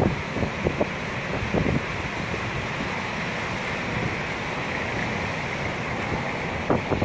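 Strong wind buffeting the microphone over the steady rush of breaking surf, with a few louder gusts in the first two seconds and again near the end.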